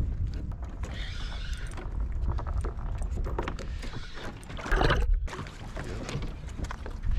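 Wind rumbling on the microphone and water slapping against a small boat, with scattered clicks and knocks; a louder burst comes just before five seconds in.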